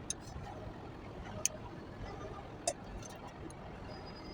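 A few sharp, isolated clicks or clinks, the loudest about a second and a half and nearly three seconds in, over a low steady background noise.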